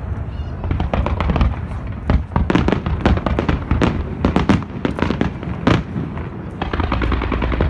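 A fireworks display, with many shells bursting in quick succession as a dense string of sharp bangs and pops. Near the end the bangs give way to a steadier crackling noise with a low rumble.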